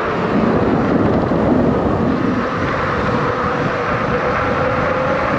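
Steady rushing wind and tyre noise from an electric bike ridden at speed, with a faint steady whine underneath.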